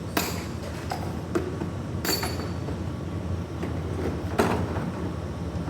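Metal hand tools clinking as they are set down on a hard surface: a few separate knocks, one with a short metallic ring, over a steady low hum.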